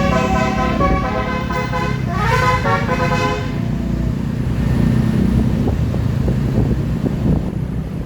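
Basuri "telolet" multi-tone air horn playing a tune in stepped notes, with a rising slide about two seconds in, stopping about three and a half seconds in. Vehicle running noise and road rumble continue after it.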